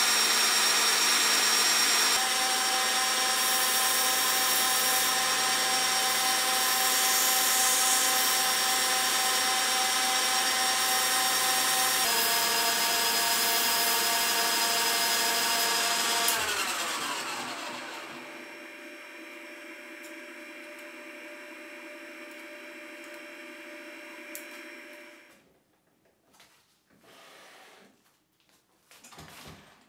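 Old geared metal lathe running at speed with a steady gear whine, turning a copper bar. About 16 seconds in its whine falls in pitch as the machine spins down, leaving a quieter hum that cuts out about 25 seconds in. A few faint knocks follow.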